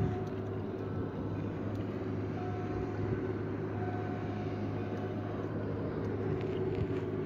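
A boat's engine running steadily, a low, even hum that holds one pitch throughout.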